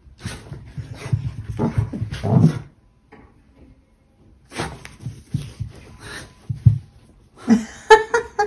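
A beagle digging and pawing at a fleece pet bed, its paws scuffing and rustling the fabric in two spells, then a few short whimpers near the end as it curls up on the bed.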